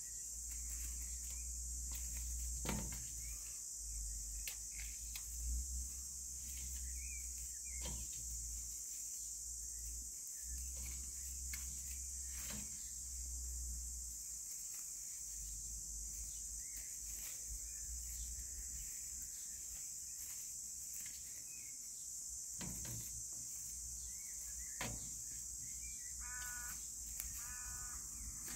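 Steady high-pitched insect chorus with scattered faint clicks, and two short animal calls near the end.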